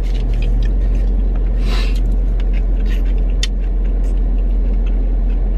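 Steady low rumble of a car idling, heard inside the cabin, with a brief rustle about two seconds in and a few small clicks from people eating.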